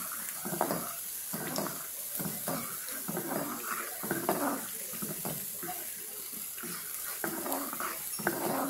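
A ladle stirring payasam in an aluminium pot: irregular sloshing of the thick liquid with the ladle scraping and now and then tapping against the pot.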